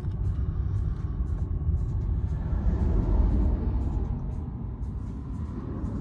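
Low, uneven rumble of surrounding road traffic and wind, heard from inside a stopped car. The rumble swells about three seconds in, then eases off.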